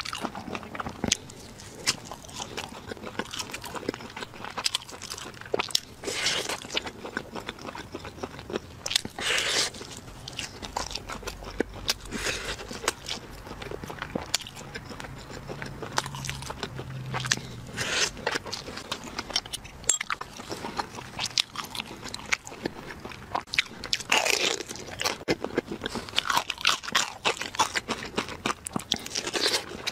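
Crunching and chewing close to the microphone as a person bites into and eats grilled and crisp fried meat. There are many irregular crackling bites, with louder crunches a few seconds in, around the middle and again near the end.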